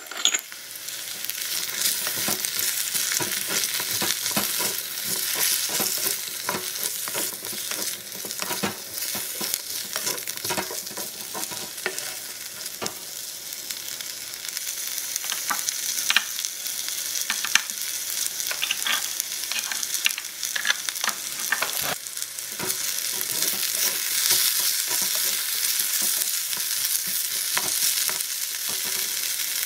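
Diced squash frying in a miniature aluminium wok: a steady sizzle that grows a little louder about halfway through, with scattered clicks and scrapes of a wooden spatula stirring.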